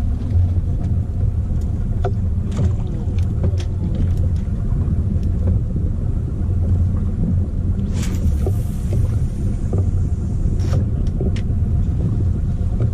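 Fishing boat's engine running steadily with a deep, even rumble, with scattered light clicks and a brief hiss about eight seconds in.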